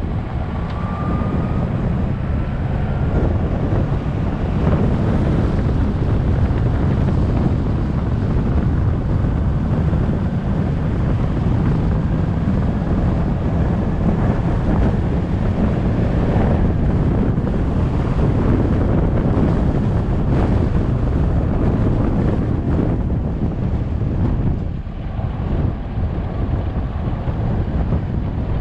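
A vehicle driving along a dirt road, heard mostly as steady low wind rumble on the microphone, with the road and engine noise underneath. The rumble eases briefly near the end.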